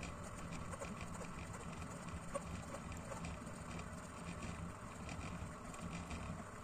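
Desktop diode laser engraver running a dot-engraving pass: its stepper motors hum in short stop-start moves as the head steps from dot to dot, with faint ticking.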